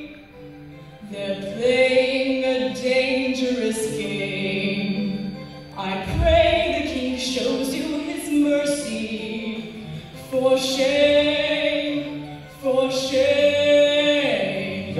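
Two young performers, a girl and a boy, singing a musical-theatre duet into a microphone.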